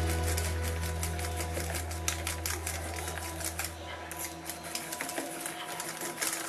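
Wire whisk beating thick cake batter by hand in a stainless steel bowl: rapid, irregular clicking as the wires strike the sides of the bowl.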